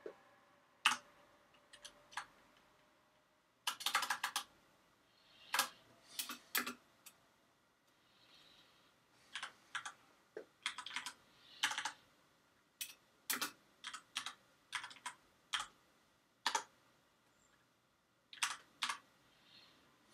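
Computer keyboard being typed on slowly: single keystrokes and short runs of clicks, with pauses between them.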